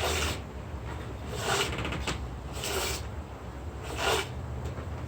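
Hand plane shaving timber, about four strokes. The blade cuts smoothly without chatter.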